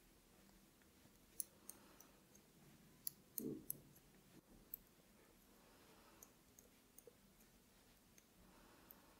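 Metal knitting needles clicking faintly and irregularly as a row is purled, with a soft low knock among a cluster of clicks about three and a half seconds in.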